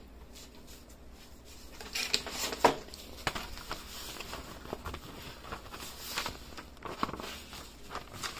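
Light handling noises: irregular soft knocks, clicks and rustling, the loudest knock about two and a half seconds in.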